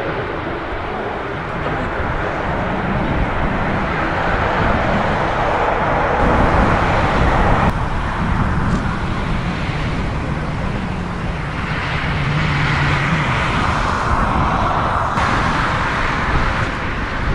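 Jet airliner engine roar mixed with strong wind buffeting the microphone, swelling and fading. It changes abruptly about halfway through and again near three-quarters of the way in.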